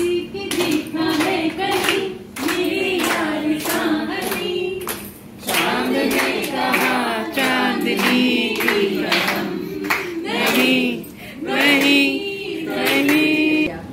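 A group of people singing a song together, with hand-clapping keeping time.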